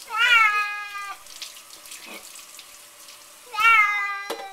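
A wet cat held under a running kitchen faucet meows twice, each cry drawn out for about a second, over the steady splash of tap water.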